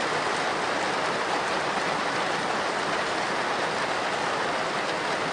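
Heavy rain drumming steadily on a slate roof, a dense, even hiss of countless drops.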